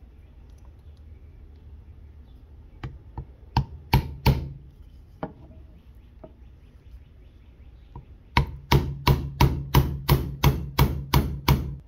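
Hammer blows driving at the stuck trigger pin of a Remington Sportsman 48 shotgun: a few scattered sharp taps in the first half, then a quick run of about a dozen blows, some three to four a second, near the end. The pin is stuck fast and binding.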